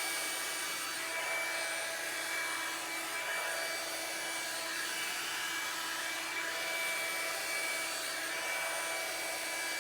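Revlon One Step paddle-brush hair dryer running steadily: a rush of blown air with a steady motor whine.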